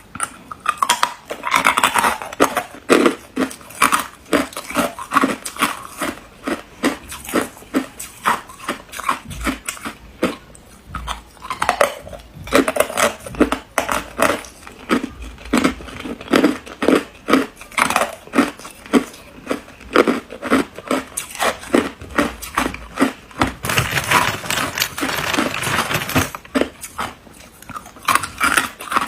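A person biting and chewing hard ice: rapid, irregular crunches and cracks, a few a second, with grainier crackling stretches as the ice is ground down.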